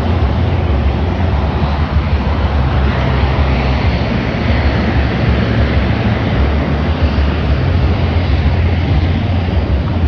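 Steady jet engine noise from aircraft on the airfield, mixed with wind buffeting the microphone as a heavy rumble.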